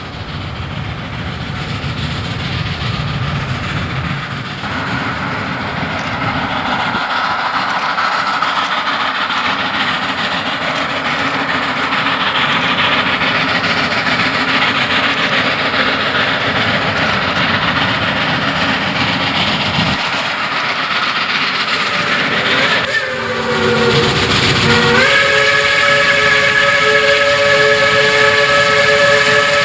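Shay geared steam locomotive No. 11 working hard with a freight train, its exhaust and running gear growing louder as it approaches. About 23 seconds in its chime steam whistle blows, a short blast and then a long one.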